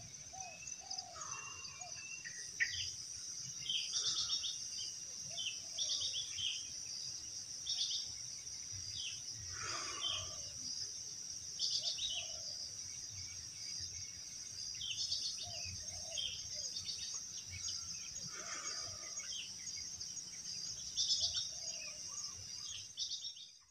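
Forest ambience: a steady high-pitched insect drone with several birds calling on and off over it. It all cuts off suddenly near the end.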